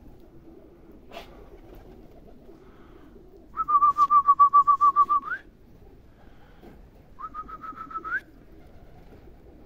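A loud trilled whistle, twice: a warbling tone that pulses about seven times a second and lifts in pitch at the end, the second shorter and quieter. It is a pigeon keeper's whistle calling young pigeons down to land.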